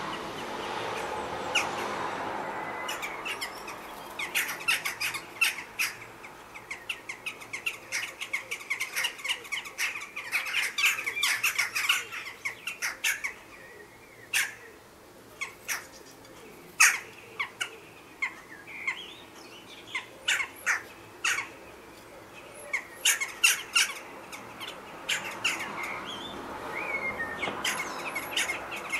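Jackdaws calling in a squabble at their nest chimney: short, sharp calls given in quick runs of several at a time, broken by brief pauses.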